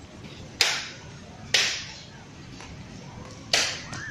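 Three sharp, loud slaps of sneakers stamped down on a tiled floor in a slow marching drill step, each fading quickly.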